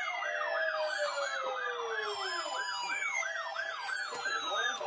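Emergency siren: a yelp that sweeps up and down about four times a second, together with a second siren tone sliding steadily down in pitch.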